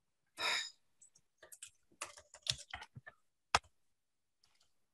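Typing on a computer keyboard: a short rushing noise about half a second in, then a quick run of uneven keystrokes with one sharper, louder click about three and a half seconds in.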